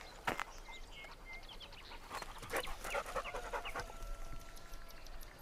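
A dog panting, with brushy rustling and clicks and a few short, high whistled notes.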